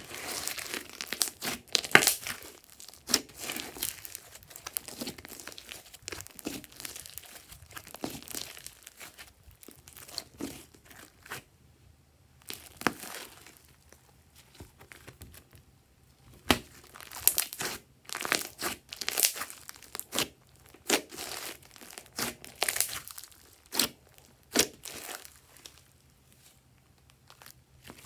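Hands squeezing, folding and stretching a large mass of fluffy slime mixed with small foam beads. It makes sticky squishing with irregular pops and clicks as air pockets burst and the slime pulls apart. There are quieter pauses about halfway through and again near the end.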